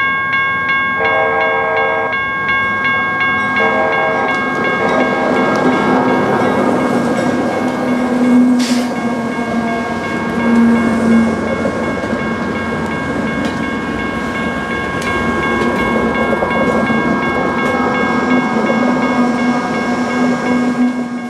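Union Pacific freight train's locomotive horn sounding two blasts in the first five seconds, then the manifest train rumbling past, with steady high tones throughout.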